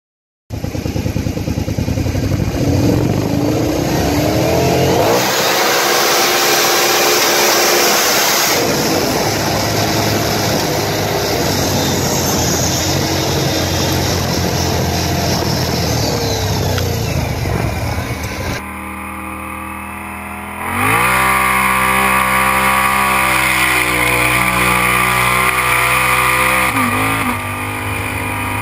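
Kawasaki Brute Force 750 ATV's V-twin engine running and revving, its pitch rising and falling. About five seconds in, a loud hiss joins the engine for about three seconds. Later the sound changes abruptly, and the engine revs up and holds high revs for several seconds before dropping back.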